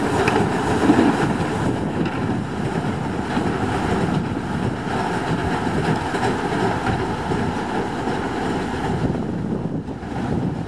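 TU2 narrow-gauge diesel locomotive running as it slowly moves off with a string of flat wagons, its V12 diesel engine making a steady drone that gets slightly fainter near the end.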